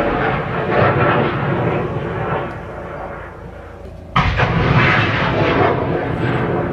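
Loud rushing roar of heavy vehicle noise that eases off, then cuts back in suddenly about four seconds in.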